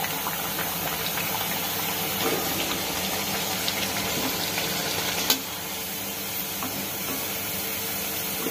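Maddur vada deep-frying in hot oil in an iron kadai: a steady sizzle, with one sharp knock about five seconds in.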